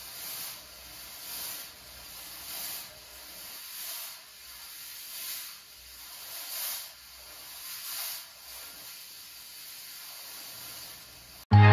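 Fog machine spraying fog with a hiss that swells in pulses about every second and a quarter, then holds steady and stops abruptly near the end.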